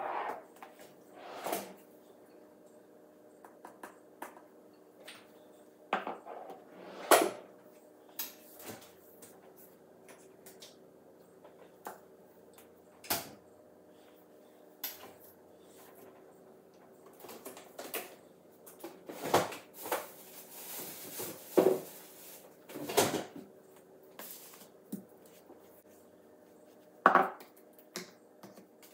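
Bottles, jars and cartons set down one after another on a wooden countertop: irregular knocks and clunks, with a faint steady hum underneath.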